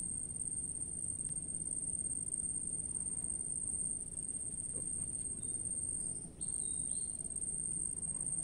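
Insects, crickets, trilling in one unbroken high-pitched drone, with a faint low rumble underneath and a few faint short chirps a little past the middle.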